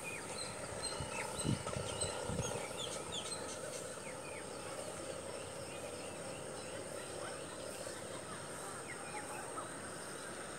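Small birds chirping, with many short scattered calls, over a steady high-pitched tone. Two low thumps come about one and a half and two and a half seconds in.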